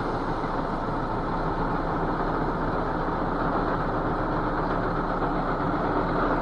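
Tipper truck's engine running steadily while its raised bed pours out a load of gravel, a continuous rushing of sliding stones over the engine's drone.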